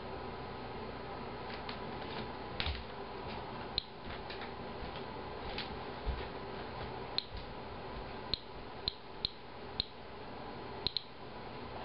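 Inspector Alert Geiger counter clicking at irregular, random intervals, about a dozen short sharp chirps, each one a detected radiation count during a timed count of a green tea sample. The rate is low, around 26 counts per minute on its display. A steady faint hum runs underneath.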